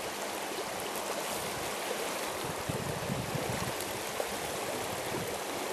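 Shallow river riffle rushing steadily, an even wash of moving water close by.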